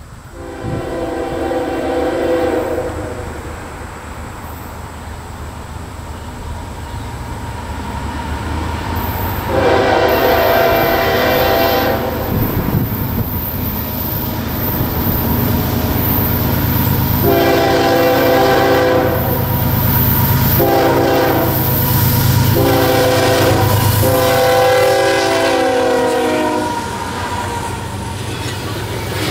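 Freight diesel locomotive horn blowing a series of multi-note blasts for a road crossing as the train approaches: one long blast near the start, another around ten seconds in, then a closer run of long and short blasts. A deep rumble builds as the locomotive nears and passes, and near the end covered hopper cars roll by with wheel clatter on the rails.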